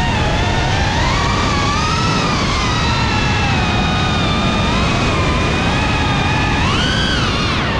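GEPRC CineLog35 FPV quadcopter's motors and ducted propellers whining, the pitch rising and falling with the throttle and climbing sharply about seven seconds in, over a steady rushing noise.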